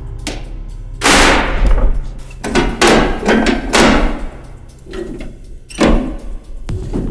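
Rusty metal control levers and linkage on a vintage farm machine being worked by hand, giving a string of loud metallic clanks and knocks: one drawn-out clatter about a second in, a quick cluster of clanks a couple of seconds later, and two more near the end.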